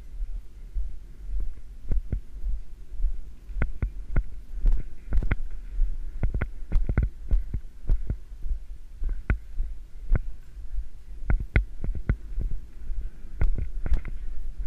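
Ridden horse moving over arena sand, heard through a rider-worn GoPro: muffled hoofbeats and irregular sharp knocks and rattles, over a steady low rumble.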